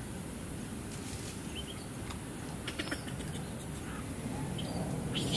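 Forest ambience: steady background noise with soft rustling, a few brief faint high chirps and clicks, and a louder burst of scratchy rustling right at the end.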